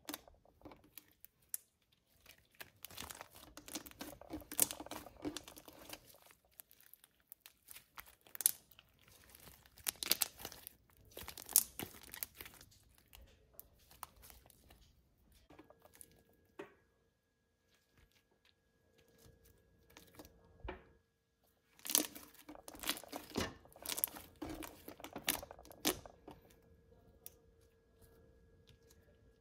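Glue-and-cornstarch slime squeezed, pressed and stretched by hand, giving bursts of wet clicks, pops and crackles separated by quieter pauses.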